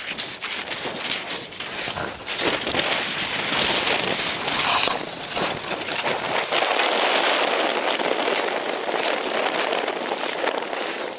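Strong, gusty wind buffeting the microphone, with footsteps crunching in snow.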